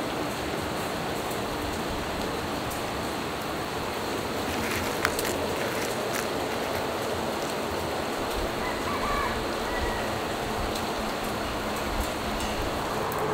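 Steady, even rain-like hiss of outdoor background noise. About five seconds in there is one sharp click, with a few lighter ticks after it, as roasted peanuts are picked out of a plastic snack tray.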